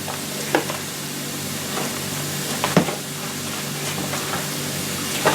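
A spoon stirring and folding a green bean casserole mixture in a bowl, with a few sharp clicks of the spoon against the bowl, the loudest near the middle. Behind it, ground beef with onions and bell pepper sizzles steadily in a frying pan.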